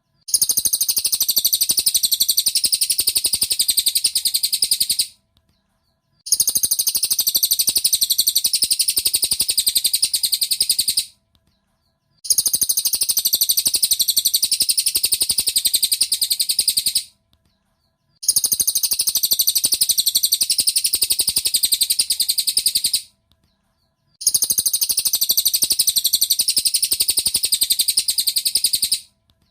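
Cililin bird song from a masteran recording: rapid, high-pitched notes in bursts of about five seconds, separated by pauses of about a second and repeating evenly like a loop.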